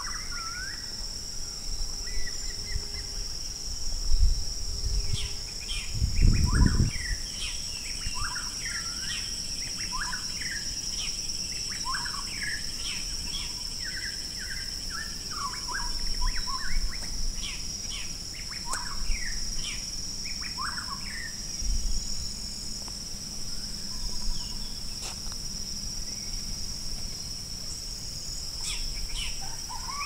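Forest birds calling: many short chirps and whistles scattered throughout, over a steady high-pitched insect drone. Low rumbling bumps come about four and about six seconds in.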